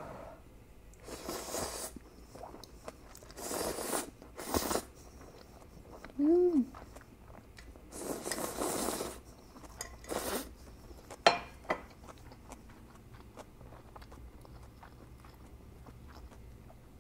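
Instant ramyun noodles slurped up from chopsticks in several loud, airy pulls, with chewing between them. A short hummed "mm" comes about six seconds in, and a sharp click comes about eleven seconds in.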